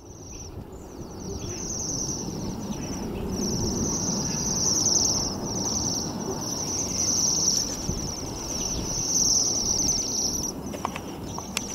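A flock of Bohemian waxwings giving their high, ringing trills, one run after another almost without a break, over a low steady background rumble.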